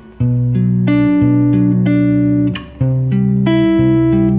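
Clean electric guitar (Telecaster-style), fingerpicked in skipped-string three-note chords. Each chord is broken into single notes, the low sixth-string note first, then the fifth string, then the third. The chord changes once, a little after halfway.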